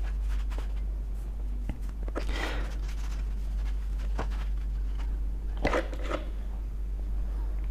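A cloth rag rubbing along a ceiling fan blade to wipe off dust: two soft wiping strokes, with a few light clicks and knocks as the blade is handled.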